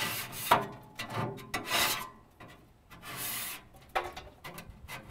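Small hand scraper's blade scraping burnt-on grease and gunk off a pellet grill's metal heat shield in a series of short, uneven strokes.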